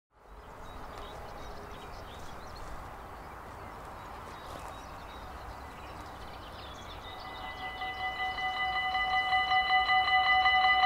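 Dutch railway level-crossing warning bell starting about seven seconds in, a rapid ringing that rises in level over a couple of seconds: the crossing has been triggered by an approaching train. Before it, open-air background with faint bird chirps.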